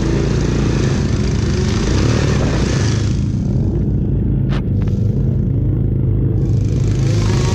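Small youth racing quad engine running steadily under load, with a loud drone and a rushing hiss above it. The hiss falls away for a few seconds in the middle while the engine keeps droning.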